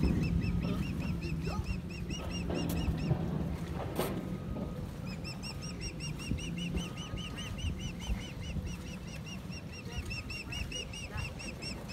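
A bird calling a rapid series of short, high chirps, about five a second, in two long bouts with a pause about three seconds in, over a steady low rumble of wind on the microphone. A single sharp click sounds about four seconds in.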